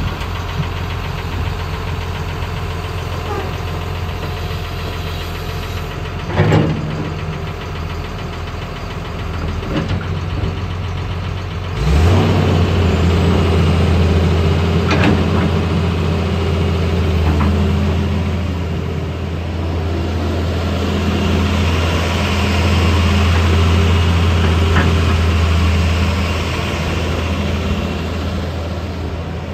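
Caterpillar 320L excavator's diesel engine running steadily, then stepping up to a higher, louder speed about twelve seconds in and holding there. A few short knocks come through over the engine.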